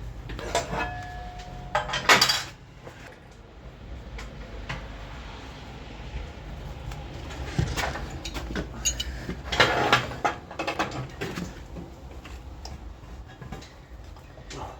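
Steel parts and tools clanking and clinking as they are handled and set down, with the loudest clank about two seconds in and a cluster of knocks around ten seconds.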